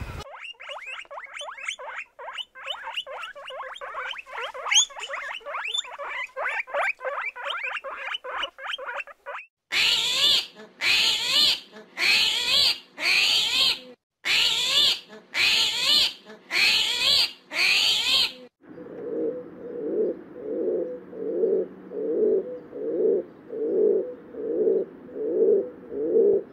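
A series of animal calls in three parts: a fast, chattering run of short chirps, then eight loud calls about a second apart, then low, rhythmic calls about twice a second.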